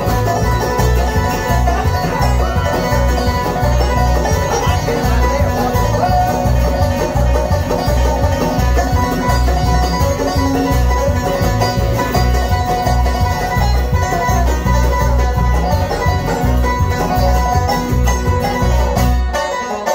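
Bluegrass band playing live: banjo, mandolin and acoustic guitars over a steady, driving beat. The music stops just before the end.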